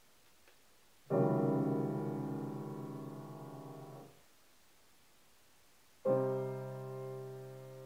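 Yamaha grand piano: a chord of many notes struck about a second in, held about three seconds as it fades, then cut off abruptly. A second chord is struck near the end and is still ringing.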